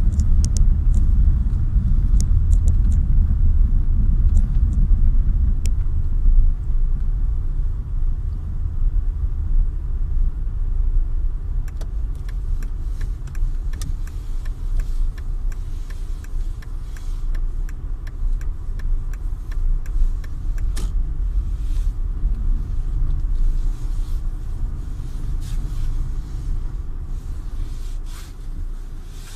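Steady low rumble of a vehicle driving on a snow- and slush-covered road, heard from inside, easing off near the end as it slows. A run of evenly spaced ticks, about two a second, sounds for several seconds in the middle.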